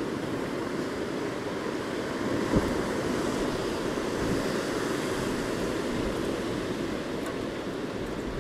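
Steady rush of wind and sea water around a small fishing boat, with a single short knock about two and a half seconds in.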